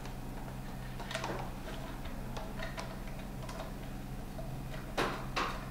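Light, scattered clicks and taps of small metal parts being handled inside an open generator crankcase, with two louder knocks about five seconds in, over a steady low hum.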